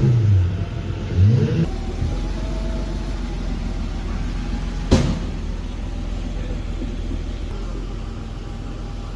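Pagani Zonda's Mercedes-AMG V12 revving twice as the car pulls away. It then settles into a steady low rumble, broken by a single sharp crack about five seconds in.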